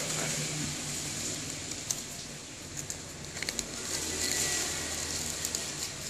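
Clear plastic shrink-wrap being peeled off a cardboard smartphone box and crumpled in the hand, crinkling with scattered crackles.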